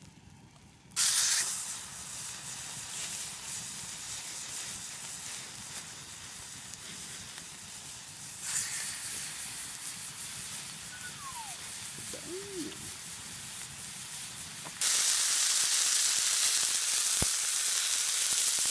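Ribeye steaks sizzling in a hot frying pan over campfire coals. The sizzle starts suddenly about a second in as the meat hits the pan, runs steadily, and jumps louder about 15 seconds in.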